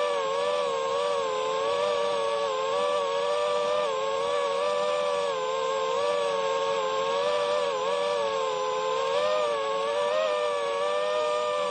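An engine running steadily at high revs with a high-pitched, buzzing tone that wavers gently up and down, over a steady rushing hiss.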